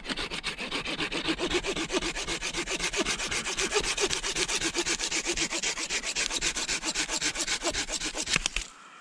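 Hand saw cutting through a live tree limb in quick, even back-and-forth strokes, several a second. The sawing stops near the end as the limb is cut through.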